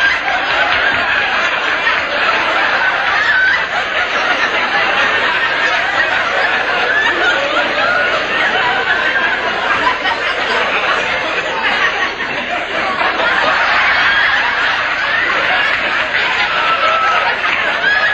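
Studio audience laughing, many voices overlapping in one long, unbroken wave of laughter that swells and eases slightly without stopping.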